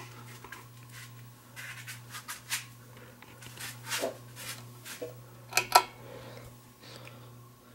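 Vintage Winnower ceiling fan's motor humming steadily, with scattered short scrapes and clicks over it and two sharp clicks, the loudest sounds, a little before the end.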